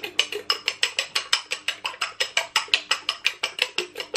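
Two raw eggs being beaten in a white ceramic bowl with a metal utensil: rapid, even clicks of metal striking the bowl, about seven a second.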